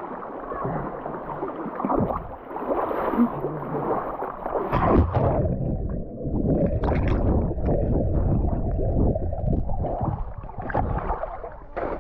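River water sloshing and gurgling around people wading. From about five seconds in it turns deep and muffled, as if the microphone has gone under water, with scattered splashes.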